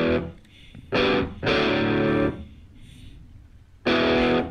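Background music: electric guitar chords played in short held stabs, four in a row with quiet gaps between them.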